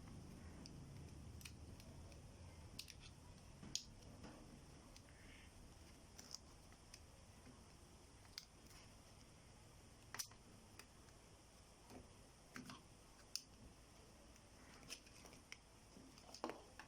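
Faint, irregular clicks and small plastic snaps from the casing of a WiFi router's antenna being pried open.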